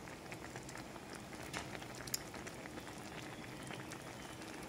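Pork and vegetables in coconut milk simmering in a pan: a faint, even bubbling crackle with a few small pops.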